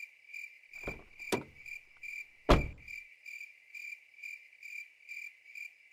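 Crickets chirping steadily at night, about two to three even chirps a second. Two knocks come about a second in, and a heavier thump comes about two and a half seconds in.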